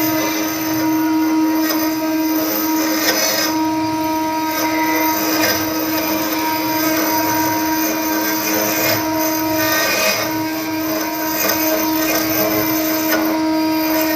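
A machine's motor running at a steady pitch with a constant hum, under an uneven cutting or grinding noise that swells now and then.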